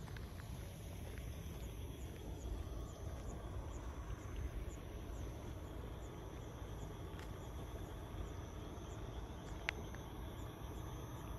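Night insects chirping in a steady high chorus, with a short chirp repeating about twice a second over a low outdoor rumble. A single sharp click near the end.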